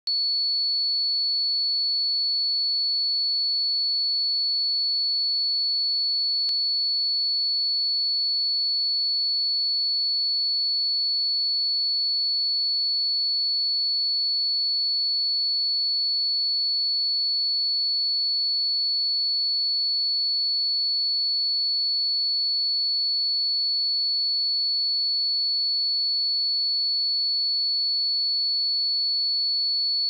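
A 4425 Hz sine-wave test tone: a single pure, high-pitched note held steady at an even level.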